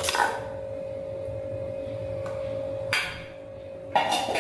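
Stainless steel bowl clinking and scraping against a steel kadai as ground rice is tipped out of it, then knocked down on the counter: a short clatter at the start, another about three seconds in, and a louder, ringing one near the end.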